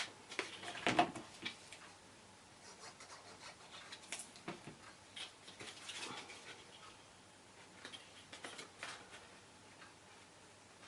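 Faint rustling and light tapping of card stock being handled and pressed into place: scattered small clicks, busiest in the first second or so.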